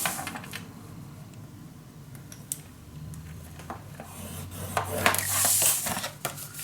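Cardstock being handled on a craft table: light taps and clicks, then a scraping swish lasting about a second, about five seconds in, as a tool is drawn along the paper.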